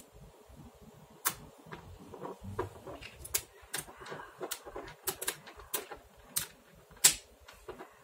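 Small magnetic balls clicking as they snap together and are pressed into place by hand: a string of sharp, irregular clicks, the loudest about seven seconds in.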